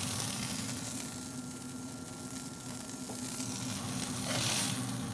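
Smash burger patties sizzling on a hot cast iron griddle, a steady hiss. About four seconds in a short louder rasp comes as the spatula slides under a patty.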